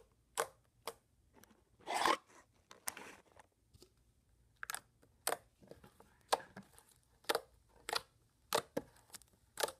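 Sand slime being kneaded and squished by hand, giving irregular sharp clicks and pops with a longer crackling squish about two seconds in.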